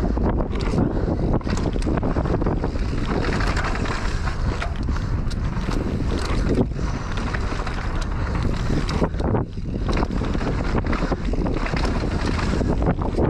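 Wind rushing over an action camera's microphone as a mountain bike descends a dry dirt trail at speed, with tyres crunching over the dirt and frequent short rattles and knocks from the bike over bumps.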